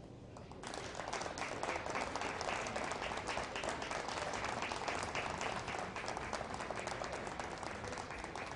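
Audience applauding: dense clapping that breaks out suddenly about half a second in and keeps up steadily.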